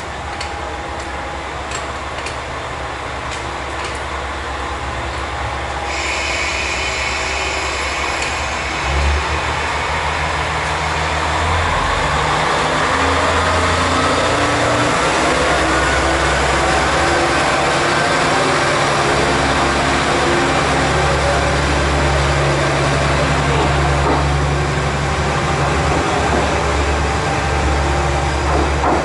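Diesel railcar engine running at the station, growing louder over the first dozen seconds and then holding steady, with a whine that rises in pitch partway through.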